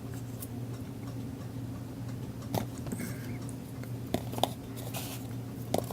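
A few scattered light clicks and taps from small craft supplies being handled and set down while searching through them, over a low steady hum.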